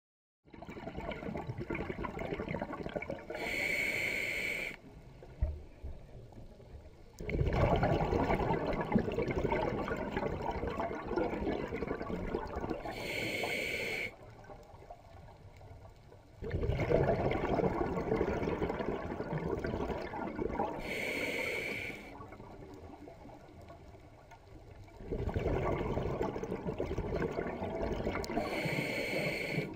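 A scuba diver breathing through a regulator underwater, in four slow breath cycles about eight seconds apart. Each is a long rush of bubbles ending in a short hiss, followed by a few seconds of quieter water.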